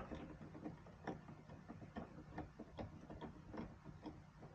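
Faint, uneven clicking of a hand ratchet, about three clicks a second, as a fastener on the fender's plastic bracket is worked loose.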